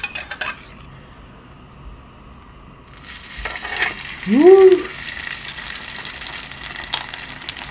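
A slice of egg-soaked bread laid onto a buttered griddle pan starts sizzling about three seconds in and keeps frying steadily. A few sharp clicks of a metal spatula against the bowl come at the start, and a short vocal 'ooh' that rises and falls sounds about a second after the sizzle begins, the loudest moment.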